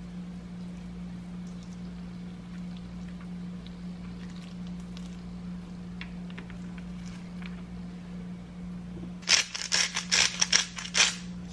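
Salt sprinkled by hand from pinched fingers onto a raw chicken breast on a wooden cutting board: a quick run of about ten sharp, gritty crackles near the end. Under it is a steady low hum, and before it come a few faint soft clicks of hands handling the wet meat.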